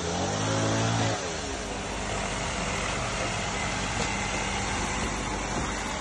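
An engine running, with a deep pitched hum that slides in pitch and stops about a second in. A steady rushing noise with a low rumble carries on after it.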